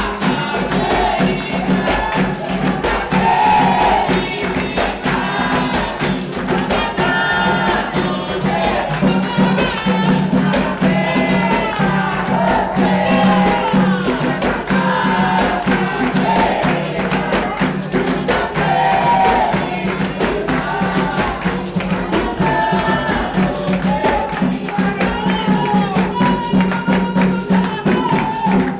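Capoeira roda music: voices singing together over a pandeiro and other percussion beaten in a steady rhythm, with a steady low tone held underneath.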